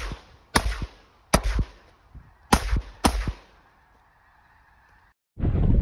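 Shotgun fired four times into a flushing flock of snow geese, the shots coming in two pairs over about two and a half seconds, with the geese honking between them. Near the end the sound cuts out briefly and gives way to loud wind on the microphone.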